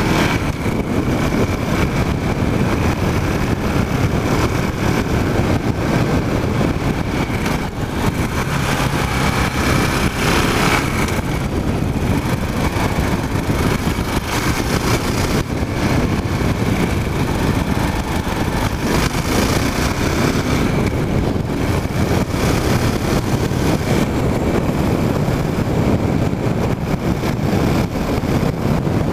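KTM Duke motorcycle engine running while riding, mixed with wind noise on the microphone mounted on the bike. The sound is loud and steady throughout.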